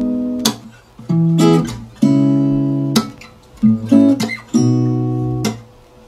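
Background music: acoustic guitar chords strummed in a steady rhythm.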